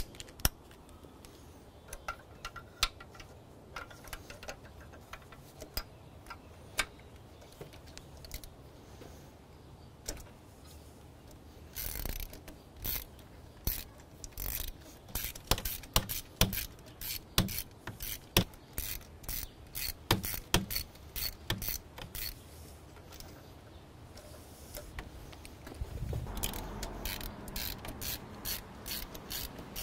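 Hand ratchet clicking as it turns a spark plug socket through a universal joint, loosening a spark plug. A few scattered clicks at first, then quick runs of clicks from about twelve seconds in.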